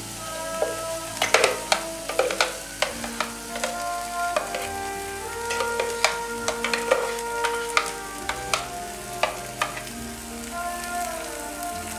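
Ground spinach puree scraped out of a mixer jar into a hot kadhai of fried masala, which sizzles, with repeated knocks and scrapes of the wooden spatula and the jar against the pan.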